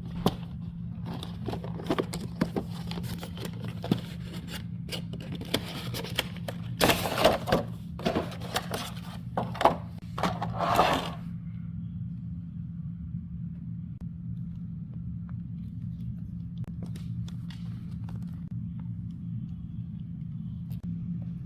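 Hands opening an action figure's box and packaging: a busy run of clicks, knocks, scrapes and rustling, loudest in a few longer rustles near the middle, that stops about halfway through. A steady low hum runs underneath and is all that is left after that.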